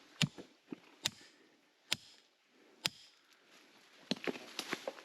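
A hand tool striking hard rock or mortar: four sharp blows a little under a second apart, then a quicker patter of small knocks and loose stones rattling near the end.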